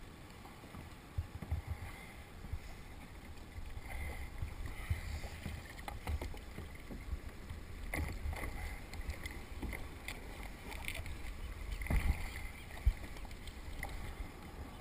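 Water sloshing and splashing against a plastic kayak hull, with clatter and knocks as scuba gear is handled on the deck. The sharpest knocks come about eight and twelve seconds in.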